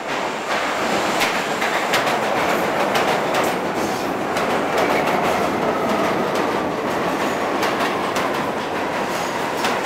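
New York City subway train running on the rails: a steady loud rumble with a stream of sharp clicks from the wheels, and a faint high wheel squeal in the second half.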